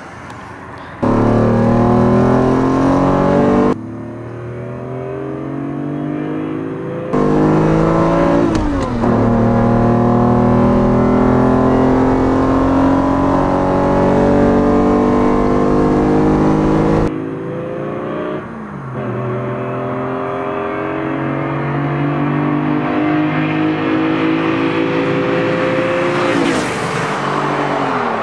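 Lamborghini Diablo VT's V12 accelerating hard, its pitch climbing and dropping sharply at each gear change, heard in several cut-together takes from the roadside and from inside the cabin. Near the end the car passes close by with a rush and a falling pitch.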